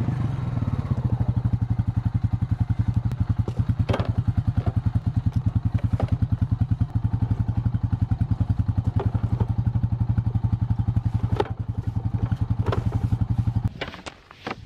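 Honda Rancher ATV's single-cylinder four-stroke engine idling with a fast, even pulsing beat, over a few sharp knocks and clatters as a plastic tote is loaded onto its rack. The engine stops abruptly near the end.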